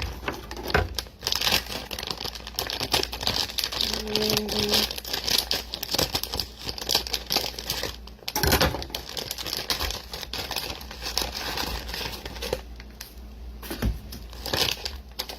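Plastic bag of frozen stir-fry vegetables crinkling as it is handled and opened.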